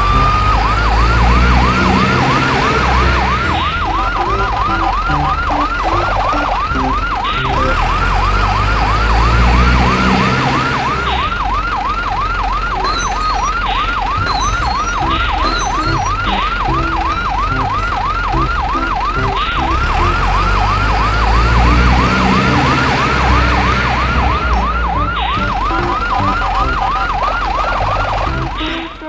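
Electronic yelp-style siren that winds up in pitch at the start, then warbles rapidly up and down a few times a second without a break, over background music.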